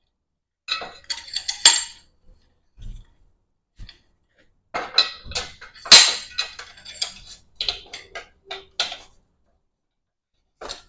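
Metal parts knocking and clattering together as the large pipe C-clamp is fitted onto the unistrut and square-tube pieces: a quick run of clanks about a second in, a longer string of clanks and rattles from about five to nine seconds, and one last knock near the end.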